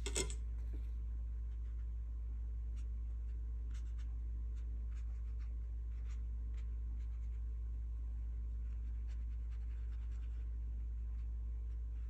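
Paintbrush making short, faint strokes on watercolour paper, after a single sharp click near the start, over a steady low hum.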